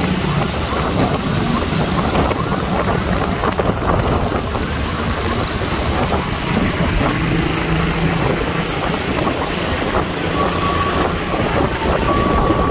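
A motor vehicle running, with heavy steady road and wind noise. Two short steady high beeps sound near the end.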